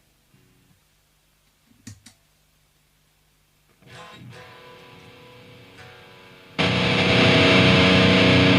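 Electric guitar played through a Diezel VH2 tube amp. A near-silent pause holds only a faint hum and a single click, then quieter guitar notes come in about four seconds in. A loud, heavily distorted part starts abruptly near the end.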